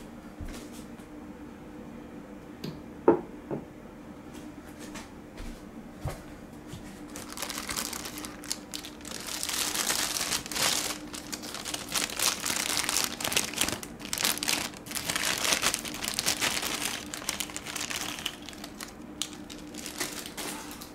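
Clear plastic bag crinkling as it is handled and pulled off a plastic model airplane wing, with dense crinkling for most of the second half. A sharp clack comes about three seconds in.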